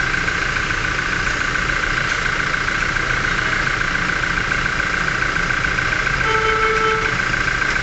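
Toyota's engine idling steadily, heard from beneath the vehicle during an automatic transmission fluid level check, with fresh fluid being filled until it overflows from the check plug. A short pitched tone, like a distant horn, sounds for under a second about six seconds in.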